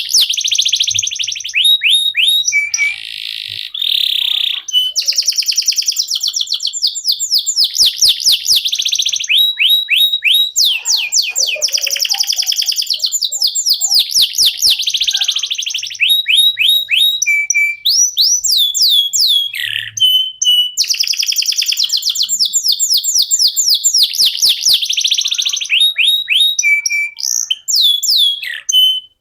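Canary singing a long, nearly unbroken song of high, fast trills and rolls, with only brief pauses between phrases.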